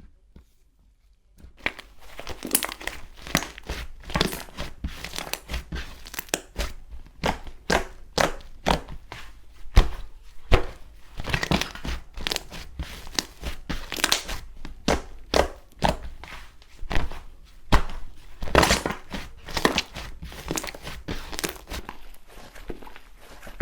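Hands squeezing and poking slime, a dense run of irregular crackles, pops and squelches that starts about a second and a half in.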